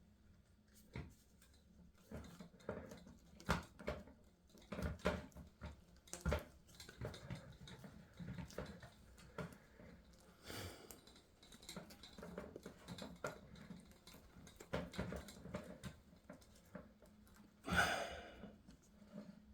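Plastic vacuum-hose parts being handled and pressed together by hand: scattered small clicks, taps and rustling as the hose end, rubber holder and plastic fittings are worked into place, with one louder, longer scrape near the end.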